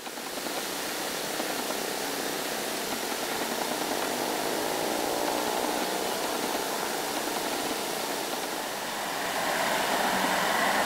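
Steady engine and road noise of passing vehicles, growing louder about nine seconds in as a vehicle approaches.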